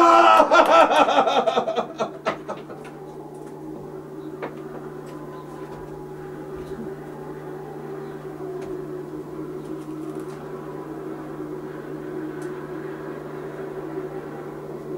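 A group of young children shouting together at a puppet show, loud for about the first two seconds and then dying away. After that there is only a steady low hum with faint held tones.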